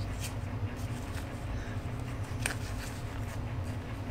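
Faint handling clicks from a plastic shift-boot frame as the stock shift boot is worked off its tabs, with a sharper click about two and a half seconds in, over a steady low hum.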